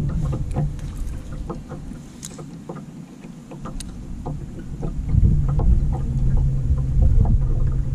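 Bass boat's electric trolling motor humming steadily. It fades about two seconds in and comes back stronger about five seconds in, under light, irregular ticks and knocks.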